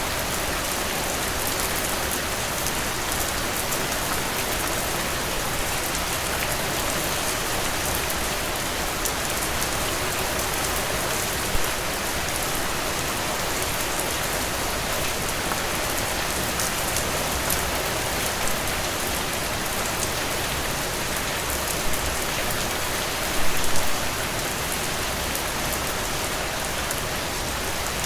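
Heavy rain pouring down in a steady, dense hiss, with a few brief louder moments in the middle and near the end.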